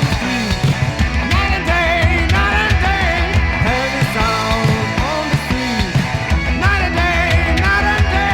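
Early-1980s heavy metal song: distorted electric guitars, bass and drums with a wavering, vibrato-laden lead line.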